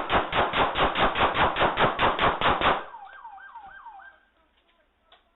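A rapid string of about sixteen gunshots, evenly spaced at five or six a second, picked up by a doorbell camera's microphone and stopping suddenly within three seconds. A few faint falling whistle-like tones follow.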